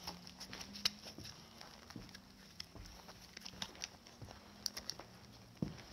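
Footsteps on a floor littered with broken ceiling tiles and boards: irregular crunches and sharp clicks, one louder snap about a second in, over a faint steady low hum.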